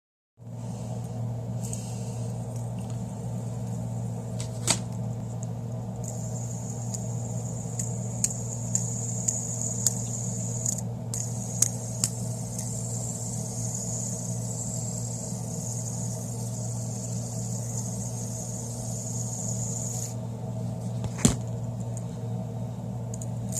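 Fidget spinner whirring steadily on its bearing: a steady hum with a faint high hiss, broken by a few sharp clicks.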